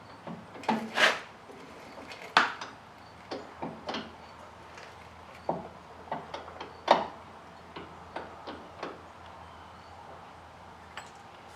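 Irregular knocks and clicks of a steel truck door hinge and its parts being handled and worked into place while a new hinge pin is fitted. The loudest knocks come about a second in, about two and a half seconds in and about seven seconds in.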